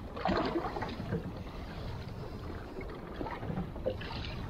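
Steady wind and water noise around a small fishing boat, with a low constant rumble underneath and a brief louder burst near the start.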